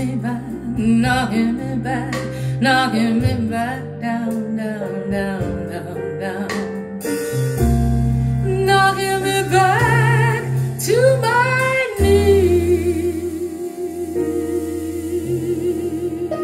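Recorded soul song with a female vocal played through Pylon Diamond 25 floor-standing loudspeakers: the singer over bass and accompaniment, ending on a long held note with wide vibrato.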